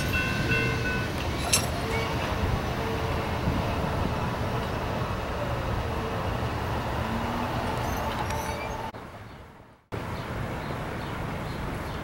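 Freight train rolling past: a steady rumble of railcar wheels on the rails. Near the end the sound fades down, breaks off and comes straight back.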